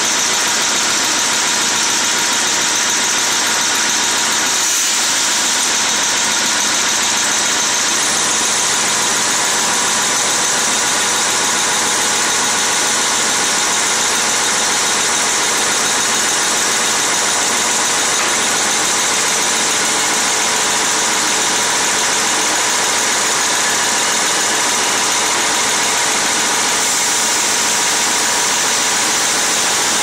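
Sawmill saw line and roller conveyors running, with boards being ripped into strips. The noise is loud and even, with no breaks.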